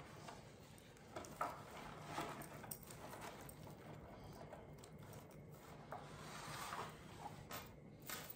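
Faint rustling of artificial leaves and stems being handled and tucked into a floral arrangement, with a few soft clicks and taps scattered through.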